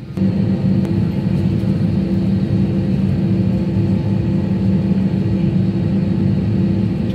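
Airbus A321 jet engines and airflow heard from inside the cabin while taxiing: a steady low drone with a few held tones over a rumble.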